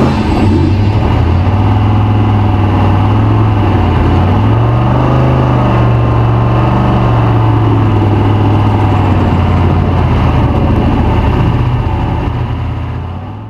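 Unlimited trophy truck's engine running steadily under load, its pitch dipping and rising a little, then fading out near the end.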